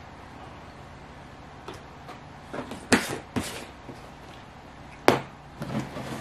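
Handling a plastic tub of protein powder and its scoop over a bowl: two sharp knocks about three seconds in, then a sharper knock about five seconds in as a plastic tub is set down on a stone tabletop, followed by lighter clatter.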